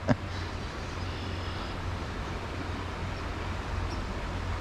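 Steady rush of a flowing stream, with a low rumble underneath.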